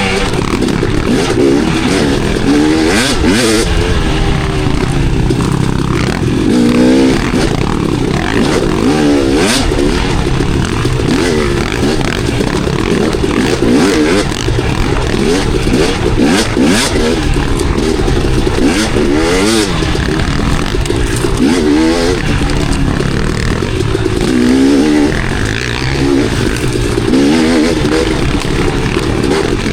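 Enduro dirt bike engine revving up and down, its pitch rising and falling every second or two as it rides single track, with scattered knocks and clatter from the bike over rough ground.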